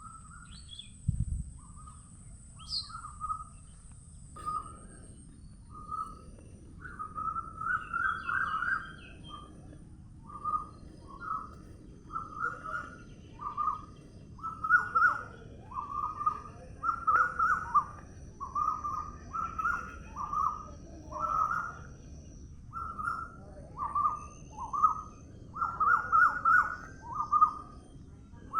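A bird calling over and over in short, fairly low notes, roughly one every second and sometimes in quick clusters, over a faint steady outdoor hiss. A thin high tone sounds in the first few seconds, and there is a single low thump about a second in.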